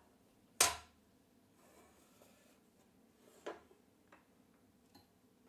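Metal square handled on the plywood and aluminium-rail jig: one sharp clack about half a second in, a softer knock about three seconds later, then a couple of faint ticks.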